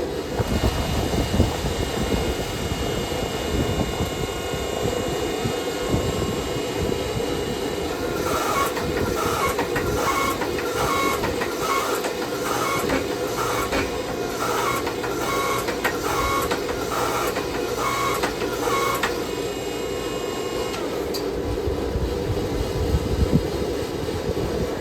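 A hand hammer striking hot steel on an anvil: about fourteen evenly paced blows, a little over one a second, each with a short metallic ring. They start about eight seconds in and stop about ten seconds later, over a steady low roar that runs throughout.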